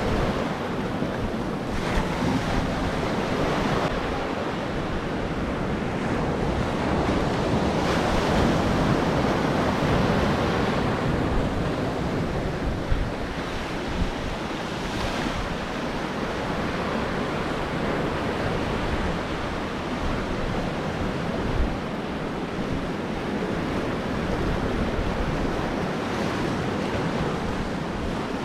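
Ocean surf washing onto a beach, a steady rush that swells and ebbs, with wind buffeting the microphone.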